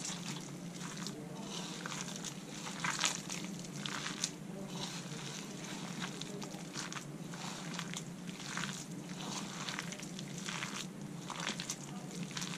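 A hand squeezing and kneading sliced onions with gram flour (besan), spices and a little water in a bowl: wet squelching and crunching of the onion strands in short irregular strokes, about one a second.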